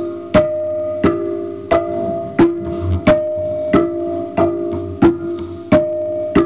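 Handmade metal noise box with springs and wire tines, amplified through its output jack, played in a steady rhythm of sharp metallic strikes, about three every two seconds. Each strike rings on as a low twangy pitched tone until the next.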